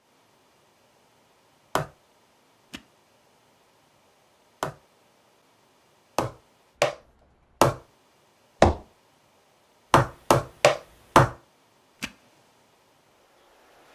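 Wooden hanko seals stamped down hard onto paper on a desk: about a dozen sharp wooden knocks, irregularly spaced, coming in a quick run of four about ten seconds in.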